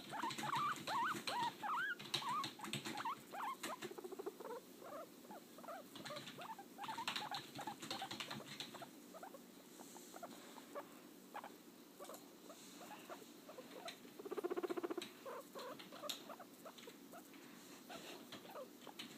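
Pet guinea pig making quick squeaky calls that rise and fall, densest in the first few seconds, then softer clicks and rustling, with a short low buzzing call about two-thirds of the way through.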